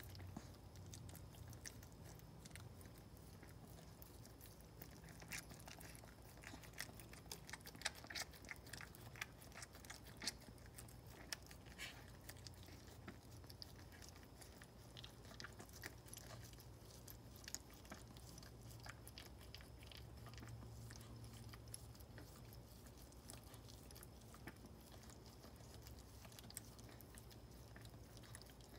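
Maltese mother dog licking and nuzzling her newborn puppy: faint, quick wet mouth clicks and smacks, thickest and loudest in the first half, over a low steady hum.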